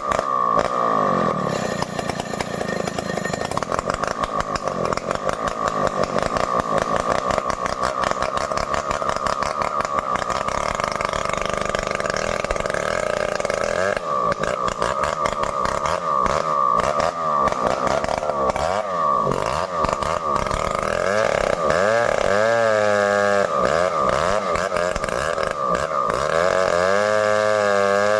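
Stihl 070 two-stroke chainsaw running hard, cutting into a large merbau (ironwood) trunk, its engine note steady and loud. About two-thirds of the way in, and again near the end, the engine pitch swings up and down in quick waves.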